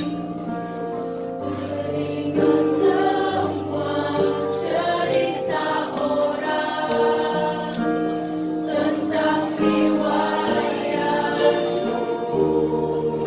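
Women's choir singing a song in several parts, with held notes changing together as chords.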